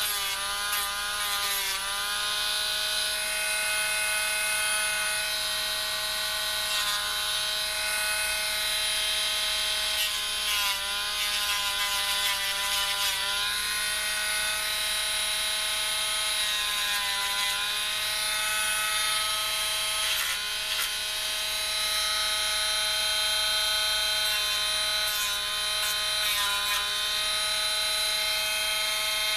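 Handheld rotary tool running at a steady high whine while sanding burrs off small plastic model parts. Its pitch sags briefly several times as the bit bears on the plastic.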